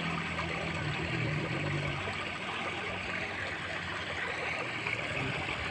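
Steady outdoor background hiss with a faint, low, steady hum that fades out about two seconds in.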